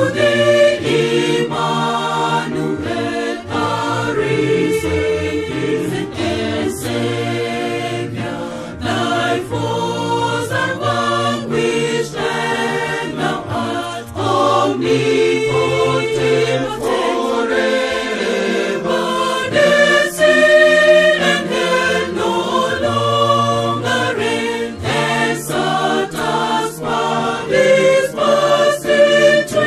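Mixed church choir of women's and men's voices singing a hymn in harmony, with a low part sustained beneath the melody.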